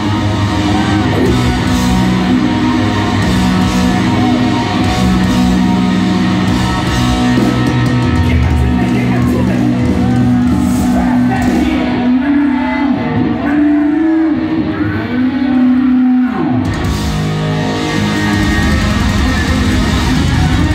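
Live hard-rock band playing loud through a concert PA, led by electric guitar, heard from within the audience. About twelve seconds in the cymbals and top end drop away for roughly four seconds, leaving guitar notes that slide in pitch, before the full band comes back in.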